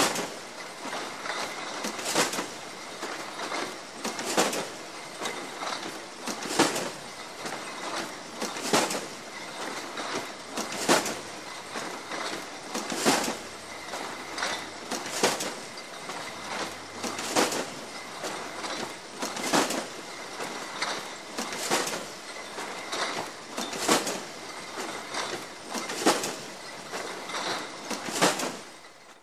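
Bottling line in a bottle factory: full glass bottles clinking and clattering together without pause, with a louder clank about every two seconds. The sound cuts off suddenly at the end.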